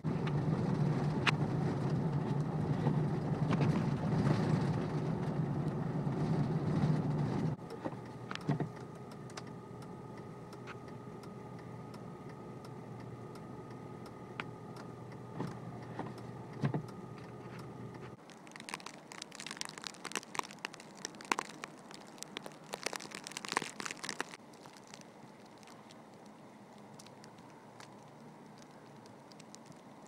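Car cabin noise while driving on a snow-packed road: a low road rumble for the first several seconds, then a quieter steady hum with a faint whine. Past the middle come several seconds of scattered crackling ticks, then a low hiss.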